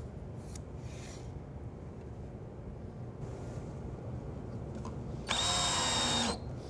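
Cordless drill-driver running for about a second near the end, driving a screw that fastens a metal drawer slide to a cabinet case.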